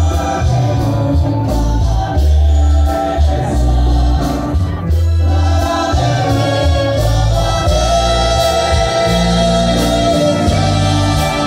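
Orchestra playing live: a strong, shifting bass line under sustained melody lines, with a steady beat.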